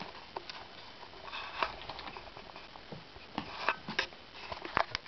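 Persian kitten scampering on carpet: a soft, irregular patter of paws with scattered sharp clicks and taps, several coming close together in the second half.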